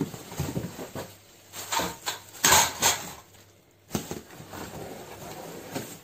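Plastic packaging crinkling and rustling in irregular bursts as fan parts are handled and pulled from their cardboard box, loudest about two and a half seconds in, with a sharp click near four seconds.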